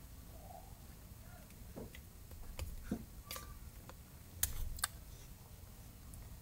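Faint scattered taps and brushing of hands striking and rubbing together during American Sign Language signing, with two sharper slaps about four and a half seconds in, over a low steady rumble.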